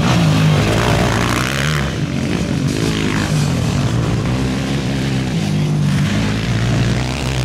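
ATV engines racing, their pitch rising and falling again and again as the riders rev up and back off around the track.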